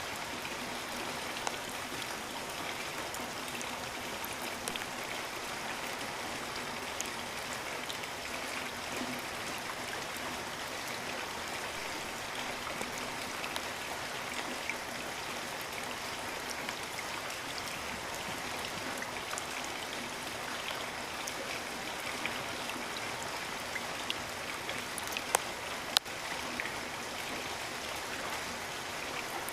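Steady rain falling, a dense even hiss with scattered individual drops ticking, and two sharper, louder drop impacts close together near the end.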